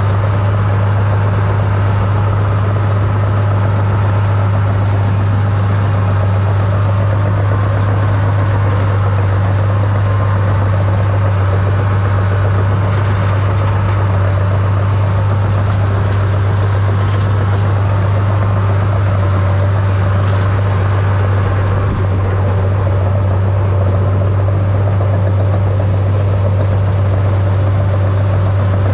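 Small crawler dozer's diesel engine running steadily under load, a loud, even low drone.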